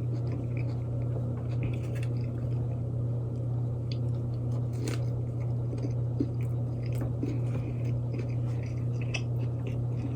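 Close-up chewing and biting of a fried chicken sandwich with lettuce: wet mouth clicks and soft crunches scattered throughout, one sharper crunch about halfway. A steady low hum runs underneath.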